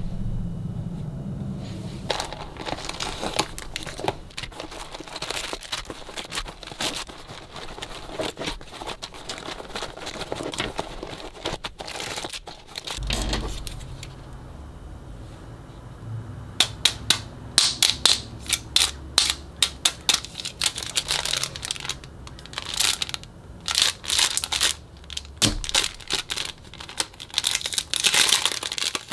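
Hands handling plastic merchandise packaging, cellophane wrappers and a clear plastic bag, crinkling. There is a dense run of sharp crackles over the second half.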